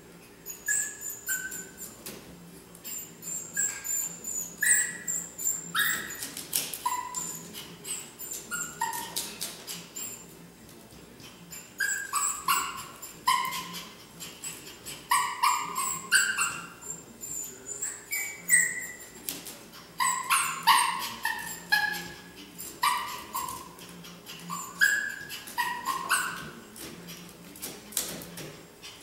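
A small dog whining and yipping in many short, high cries that fall in pitch, while its claws click and scrabble against a plastic mesh baby gate as it climbs on it.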